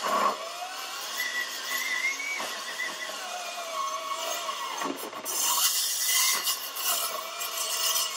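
Milwaukee M18 Fuel cordless metal-cutting circular saw with a 42-tooth blade cutting through 3/8-inch steel plate. The blade whines, its pitch sagging and recovering as it is fed into the cut, with a louder, harsher stretch about five to seven seconds in.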